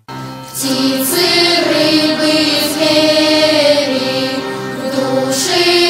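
Children's choir singing a song in Russian with words, the voices holding and gliding between sustained notes.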